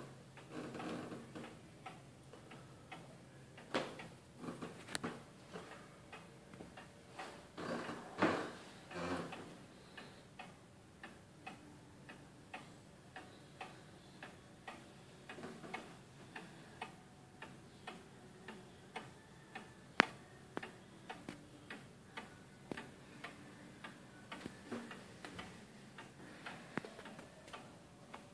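Ticking of a Civil War-era American walnut 8-day spring-driven wall clock, its pendulum movement beating a steady, even tick-tock. A few louder knocks and rustles break in during the first ten seconds.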